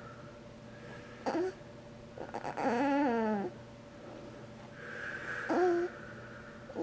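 Snoring in uneven breaths: a short whistling snort about a second in, a longer wavering, rattly snore in the middle that drops in pitch as it ends, and a breathy draw ending in another short whistle near the end.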